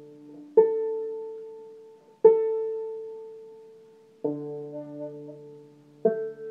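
Five-string banjo strings plucked one at a time, four single notes about two seconds apart, each ringing out and fading, as the strings are checked after retuning to double D tuning.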